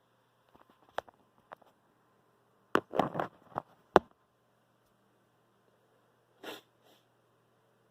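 A man sniffing hard through his nose several times in quick succession, with a few very short sharp catches of breath. A single further sniff comes a couple of seconds later.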